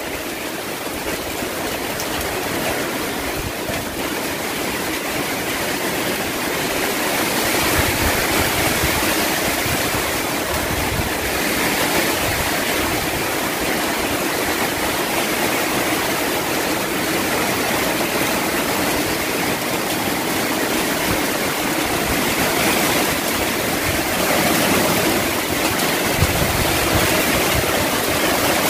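Typhoon downpour driven by strong wind: a steady, dense hiss of heavy rain, with low gusts buffeting the microphone every few seconds, most strongly near the end.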